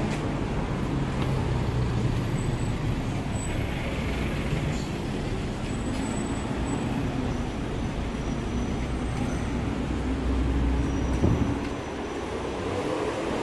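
City road traffic passing close by: a steady low rumble of car engines and tyre noise.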